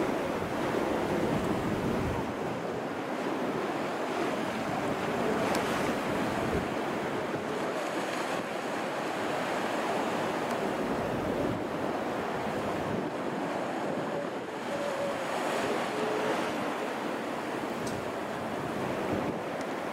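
Sea waves washing and breaking on the shore, a steady rush of surf, with wind blowing across the microphone.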